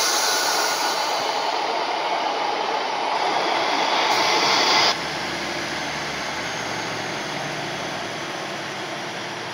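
Class 150 diesel multiple unit standing at a platform with its diesel engine idling in a steady low drone. A loud hiss runs over it for the first five seconds and cuts off suddenly, leaving the engine running alone.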